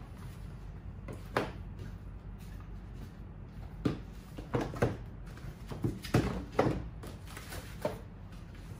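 Woven bamboo bee houses being set down and shifted on a glass tabletop: several light knocks and clunks at uneven intervals, the loudest a little past the middle.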